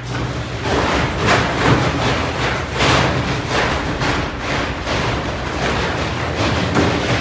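An inflated vinyl paddling pool being tipped and handled, giving irregular thuds and rubbing, over steady background music.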